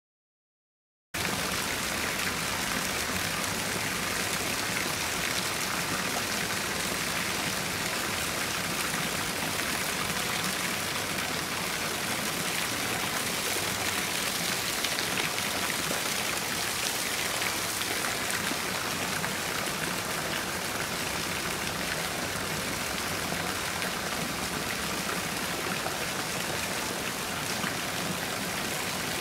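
Steady rush of running water from a small stream, starting suddenly about a second in after silence.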